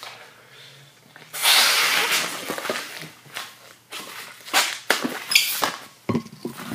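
A long latex twisting balloon being blown up by mouth: one long, loud rush of breath about a second in, then a series of shorter puffs and breaths.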